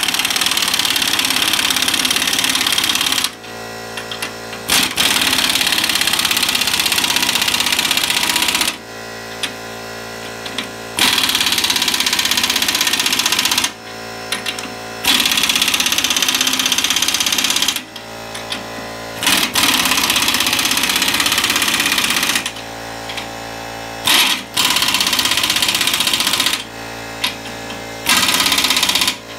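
Impact wrench hammering in about seven bursts of two to four seconds each, with short pauses between, as it tightens the U-bolt nuts that clamp the rear axle to the leaf spring.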